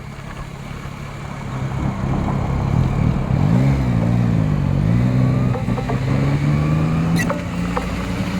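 Yamaha Tracer 9 GT's 890 cc inline-three engine on its stock exhaust, running and getting louder over the first two seconds, with a short rev that rises and falls about three and a half seconds in, then running steadily.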